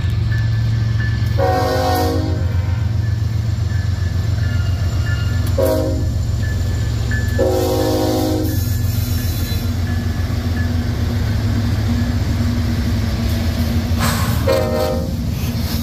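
CSX freight diesel locomotives passing at close range, their engines a steady low drone. The locomotive air horn sounds four blasts: a long one about a second and a half in, a short one near six seconds, another long one soon after, and a shorter one near the end.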